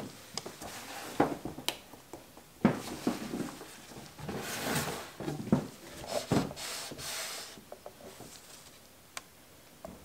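Scattered knocks and clicks of a plastic pitcher and containers being handled on a stainless steel worktable, with a couple of brief rustling swishes in the middle.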